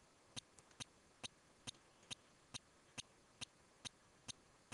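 Faint, evenly spaced ticks, a little over two a second, against quiet room tone.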